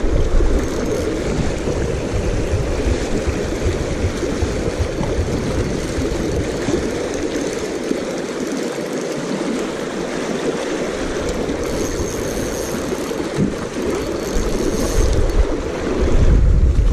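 Creek water rushing steadily over a shallow riffle, with low rumbles of wind on the microphone at the start and near the end.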